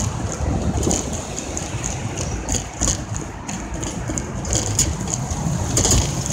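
Steady rumble of road and engine noise heard inside a moving car, with a few short knocks from bumps, the loudest near the end.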